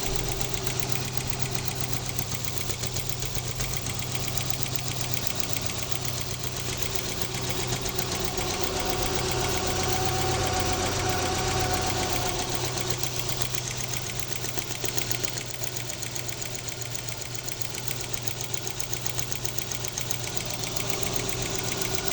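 Toyota Land Cruiser's 2UZ-FE V8 running with a fast, even ticking over the engine note: a tappet noise problem. The engine swells slightly for a few seconds midway.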